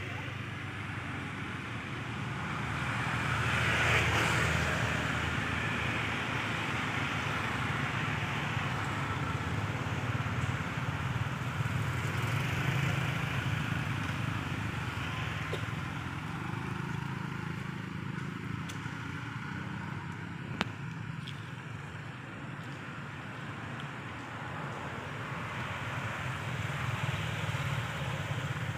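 Steady motor-vehicle traffic noise with a low hum, swelling as vehicles pass about four seconds in and again around twelve seconds. There is a single sharp click about twenty-one seconds in.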